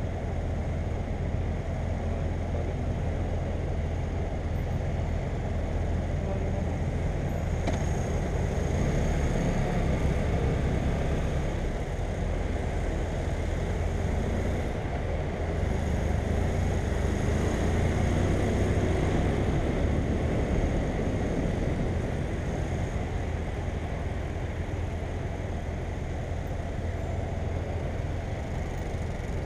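BMW F800GS motorcycle's parallel-twin engine running steadily while riding, under road and wind noise; it grows a little louder twice.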